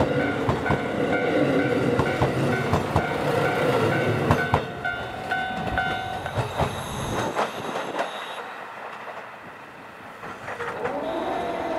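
JNR KiHa 40 and KiHa 54 diesel railcars of a three-car train running past close by, wheels clicking over the rail joints, while a level-crossing bell rings in short repeated tones. The bell stops about six seconds in, and the train's sound fades as it draws away. Another engine sound rises near the end.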